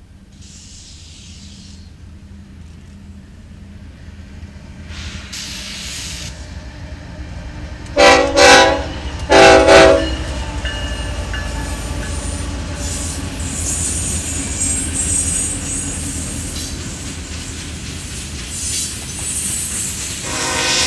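BNSF freight train approaching and passing, its rumble building as the locomotives draw near. Two loud horn blasts come about eight seconds in, then the steady rumble and clatter of tank cars rolling by with some high-pitched wheel squeal. Another horn note starts right at the end.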